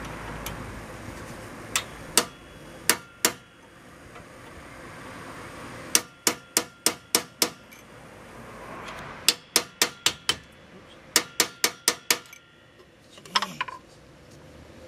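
Sharp metallic hammer blows on a steel punch driving against a seized, rusted hub bolt in a Dodge Dakota steering knuckle. There are two pairs of strikes, then three quick runs of about six blows each at roughly five a second, with a short clatter near the end. The bolt is stuck and does not drive out.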